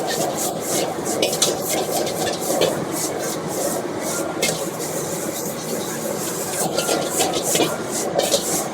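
Stir-frying: a metal spatula scraping and stirring food in a wok, many quick irregular scrapes over a steady noisy background.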